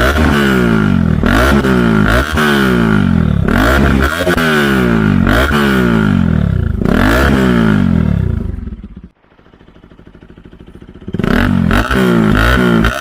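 Bajaj Pulsar RS 200's single-cylinder engine through an aftermarket Mivv full-system exhaust with a dB killer, revved in repeated throttle blips about once a second, each rising quickly and falling away. Past the middle the revs fall away to a quiet low stretch of about two seconds before the blipping starts again near the end.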